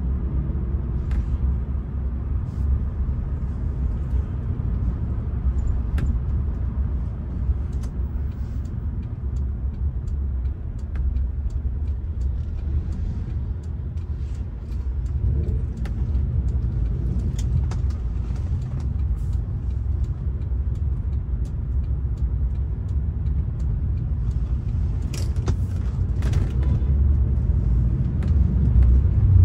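Cabin noise of a Rolls-Royce Silver Spirit driving at low speed: a steady low engine and road rumble with a few faint clicks, growing louder near the end.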